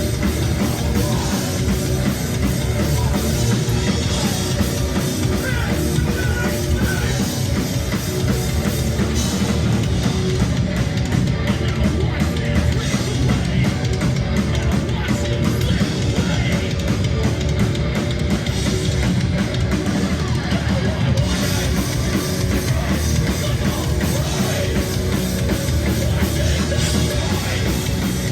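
Heavy rock band playing live at full volume, with guitars and a drum kit, dense and continuous.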